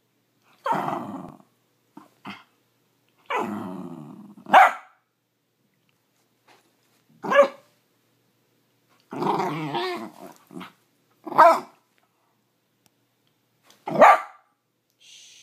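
Piebald dachshund barking and growling: four short, sharp single barks a few seconds apart, with longer growly grumbles of about a second between them. This is demand barking from a hungry dog wanting his breakfast.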